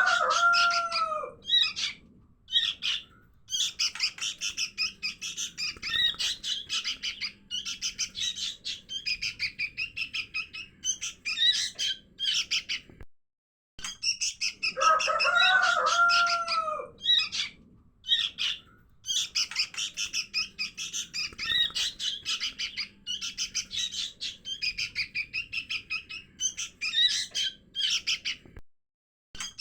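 Young sooty-headed bulbuls (kutilang) calling: dense, rapid high chirping in quick runs with short breaks. It is a looped lure recording that repeats about every 15 seconds, each pass opening with a lower, curved call.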